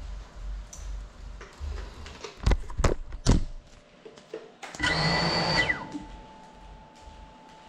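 Low bumps and three sharp knocks, then the FPV drone's brushless motors whine up for about a second and spin down with a falling pitch. A faint steady tone follows.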